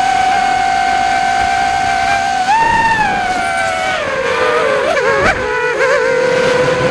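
FPV quadcopter's motors whining in one steady pitch. The whine steps higher about two and a half seconds in, then drops lower and wavers unevenly as the throttle changes, with a short sharp click about five seconds in.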